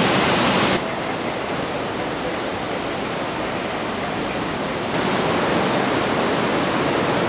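Steady rush of flowing water, like water pouring through stone channels into a river. The noise drops abruptly to a softer, even rush just under a second in, then steps back up at about five seconds.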